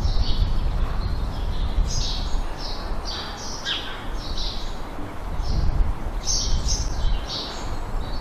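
Small songbirds singing and chirping in short, quickly repeated phrases, over a steady low rumble.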